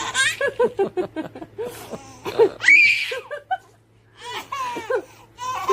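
Six-month-old baby laughing in short rapid bursts, with a loud, high-pitched squeal of delight about two and a half seconds in and more laughter near the end.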